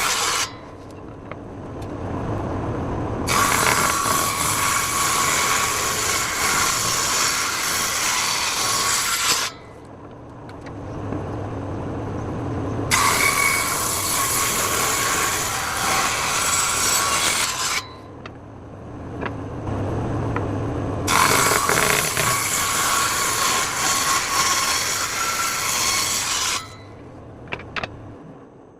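Table saw running and cutting wood three times, each cut a loud, several-second stretch of blade noise over the motor hum, with the saw running quieter between cuts. It winds down near the end.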